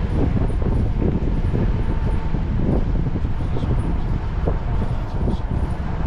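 A vehicle driving slowly, with steady engine and tyre noise that is strongest low down.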